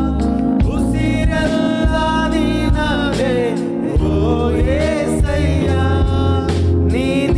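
Kannada Christian worship song: a voice sings a wavering melody over a band, with steady bass and regular drum beats.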